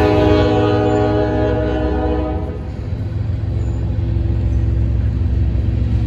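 Union Pacific freight train of covered hopper cars rolling past, a steady low rumble of wheels on rail. A locomotive horn sounds one long chord blast that starts right away and dies out about two and a half seconds in.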